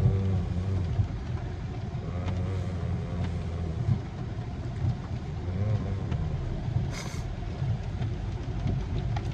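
Car road noise from a car being driven, a steady low rumble, with a short sharp click about seven seconds in.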